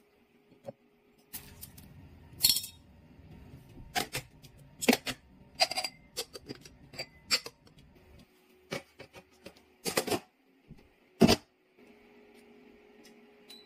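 Glass jars and their glass lids clinking and knocking as they are handled and set into an electric stew pot's insert: a string of sharp, separate clinks, the loudest near the end. A few clicks from the stewer's dial and buttons being set come last.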